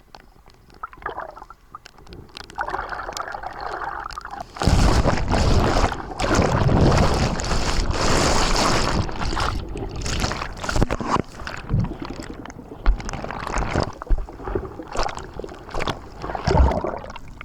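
Rough sea water sloshing and splashing close to the microphone, with a loud rush of water lasting several seconds from about five seconds in, then choppier, uneven splashes.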